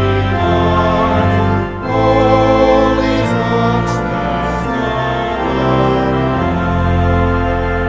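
Church organ playing sustained chords, with a brief break between chords about two seconds in.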